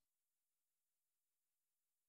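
Silence: the audio track has ended, leaving only a faint digital noise floor.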